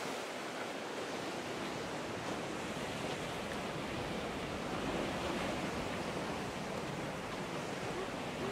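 Steady rushing of ocean surf, mixed with wind on the microphone.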